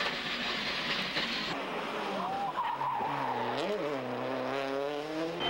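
Subaru Impreza WRC rally car with its turbocharged flat-four engine. For the first second and a half it is heard from inside the cabin, engine and road noise under load. After that it is heard from the roadside through a tight tarmac bend: the engine note dips briefly about three and a half seconds in, then rises again as the car accelerates away.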